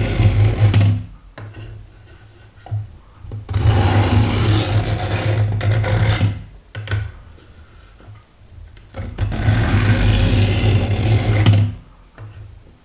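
A kitchen knife blade drawn along the sharpening stone of a Work Sharp guided sharpening system. There are three long, even strokes about three seconds apart, with short pauses between them. This is the first sharpening of a blunt flat-ground knife at a 17-degree angle.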